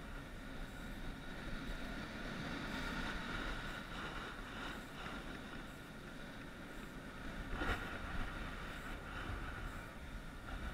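Skiing down a groomed piste: a steady scraping hiss of edges sliding over packed snow, mixed with wind rushing over the microphone, and one sharper scrape about three quarters of the way through.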